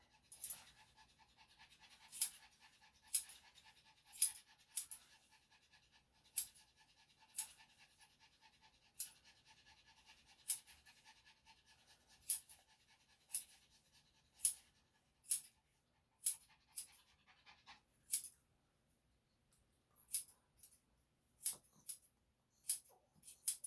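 Short, sharp snips roughly once a second, irregularly spaced, from grooming tools working on a Yorkshire Terrier's feet, with a faint steady hum under the first part.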